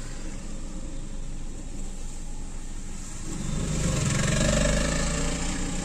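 Car engine hum and tyre hiss on a waterlogged road, heard from inside a car. From about three seconds in a deeper engine hum and wet hiss grow louder, as of vehicles passing through the water, then ease off slightly near the end.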